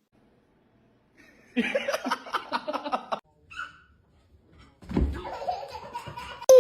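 A person laughing in quick repeated bursts, starting about a second and a half in after a silent gap, with more laughing and voices near the end.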